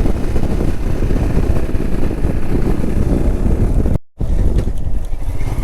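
Wind buffeting the microphone over the running noise of a moving road vehicle, a dense low rumble, cut off abruptly for a moment about four seconds in.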